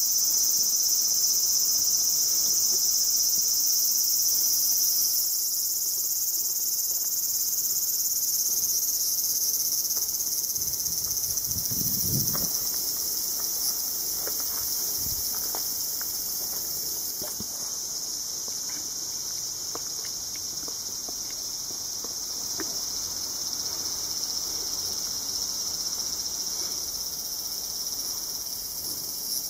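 Dense chorus of insects shrilling steadily, high-pitched, easing a little about halfway through.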